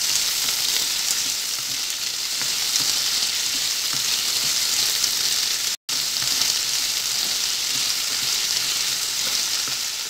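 Chopped onions sizzling in hot oil in a nonstick pan while being stirred with a spatula. This is the early sauté as the onions soften. The steady sizzle drops out completely for an instant a little past halfway.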